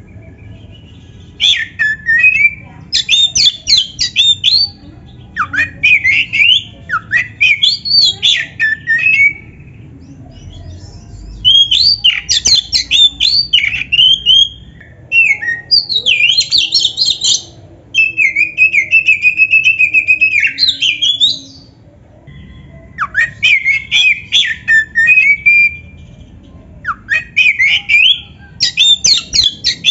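Black-breasted Oriental magpie-robin singing loudly: phrases of a few seconds each, made of rapid sweeping whistles and harsh notes, with short pauses between them. About halfway through, one phrase runs on into a long buzzy trill.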